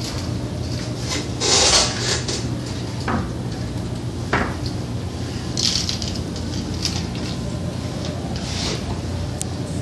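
Small plastic caps of a Munsell hue test being handled on a tabletop: scattered clicks and rubbing as the caps are tipped out and slid about and their plastic trays are lifted and set down, with two sharper clicks around three and four and a half seconds in. A steady low hum runs underneath.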